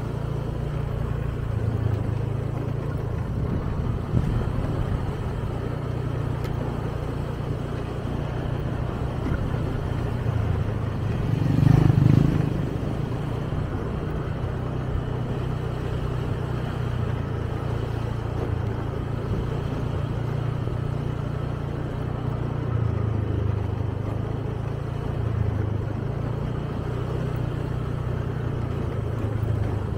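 Small motorbike engine running steadily under way, with a brief louder surge about twelve seconds in.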